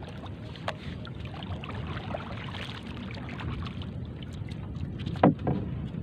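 Steady wind and water noise around a small outrigger canoe, with a few light knocks. About five seconds in comes one sharp wooden knock, the loudest sound, as the paddle is laid across the canoe, followed by a smaller knock.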